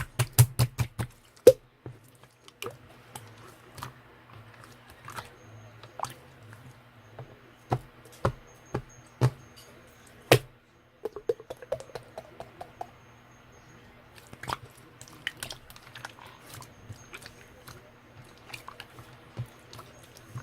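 Irregular sharp clicks and taps, a quick run of them in the first second or so and scattered ones after, over a low steady hum.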